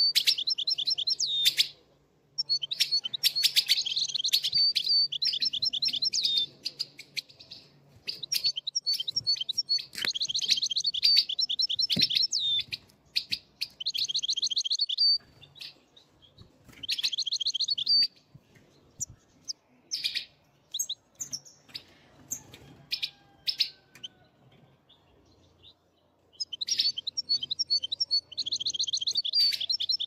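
Caged European goldfinches singing: bursts of rapid, twittering song a second or two long, repeated with short gaps, among scattered sharp clicks. The song pauses for a few seconds a little past halfway, then starts again near the end.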